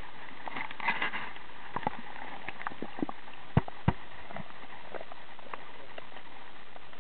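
Underwater sound: a steady hiss with many small scattered clicks, a short crackle about a second in, and two sharper knocks about halfway through.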